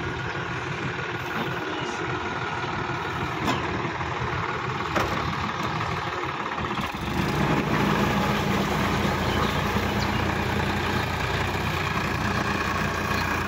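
Sonalika DI-50 RX tractor's diesel engine running steadily, getting louder and heavier about seven seconds in. Two short sharp clicks come in the first half.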